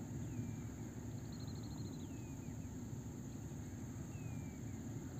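Steady low rumble inside a ropeway gondola cabin travelling down the cable, with faint bird calls over it: a quick trill that slides downward about a second in, and a couple of single falling whistles.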